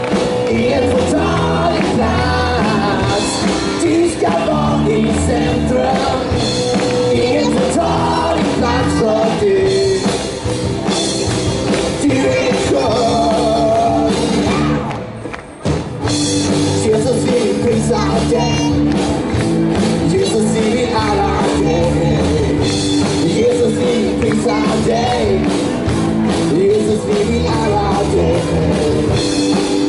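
Live band and children's choir with adult singers performing an upbeat worship song together; the music briefly drops out about halfway through, then comes back in.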